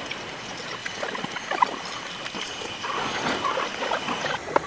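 Wood being worked with hand tools: an irregular scratching and scraping, scattered with small clicks and a couple of sharper knocks.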